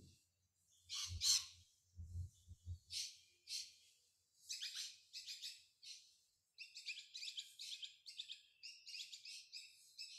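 Small birds chirping and calling in short bursts, sparse at first and then almost continuous through the second half. There are a few soft low thuds in the first three seconds.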